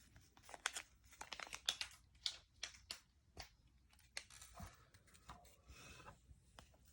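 Faint crinkling and tearing of plastic packaging being handled and opened, with scattered light clicks and rustles.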